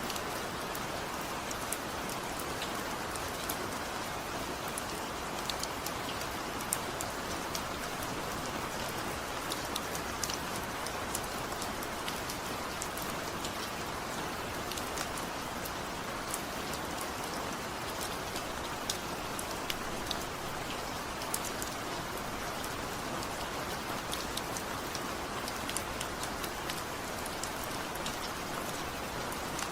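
Steady heavy rain falling, a constant hiss with many small sharp drop ticks on top, and no thunder.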